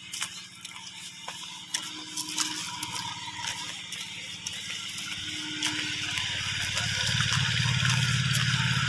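A vehicle engine's steady low hum, growing louder over the last couple of seconds, with scattered sharp clicks.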